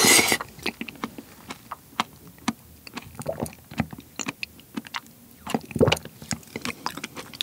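A wet slurp of soft, seedless ripe persimmon pulp off a spoon, loudest right at the start. Then squishy mouth sounds and small lip-smacking clicks as the jelly-like flesh is worked and swallowed, with a louder wet smack about six seconds in.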